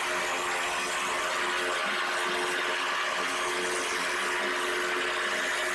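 Combination belt and disc sander running steadily, its disc sanding the end of a white board pressed against it: a motor hum under a rushing abrasive noise.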